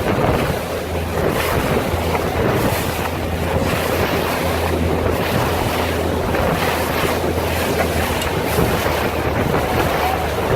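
Strong wind buffeting the microphone over rushing water and waves, steady throughout, with a low steady hum underneath.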